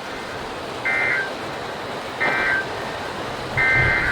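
Emergency Alert System SAME data bursts: short buzzy two-pitch digital screeches, three in a row about a second and a half apart, the last starting near the end and running longer. They are the coded header of an incoming weather alert.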